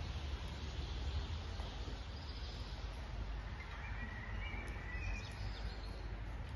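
Steady background noise with a low rumble, and a few faint bird chirps about four to five seconds in.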